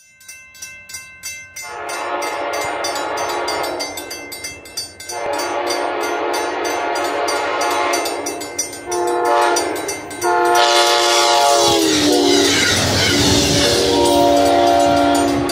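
Amtrak Genesis diesel locomotive sounding its multi-note horn for a grade crossing: two long blasts, a short one and a long one, with the horn's pitch dropping as the engine passes, then one more blast near the end. A crossing bell dings at a steady beat underneath, and the rumble and clatter of the passing train grows loud in the second half.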